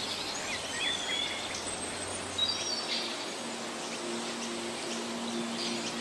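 Forest ambience: birds chirping and whistling in short calls over a steady hiss. Soft, low held music notes come in about halfway through.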